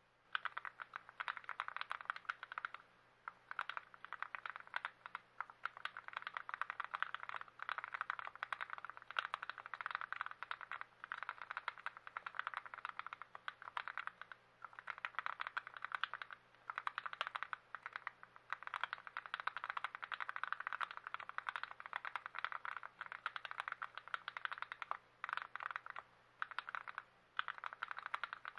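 Fast typing on a TX66 custom mechanical keyboard with lubed switches and stabilizers: dense runs of key clacks broken by short pauses.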